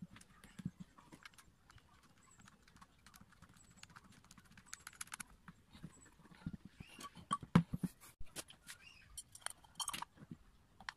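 Handling noise from a partly dismantled Makita electric planer: its plastic housing and metal base knocking and clicking as it is turned over by hand on the workbench. The knocks are irregular and scattered, getting busier from a little past the middle, with the loudest knock about two-thirds of the way through.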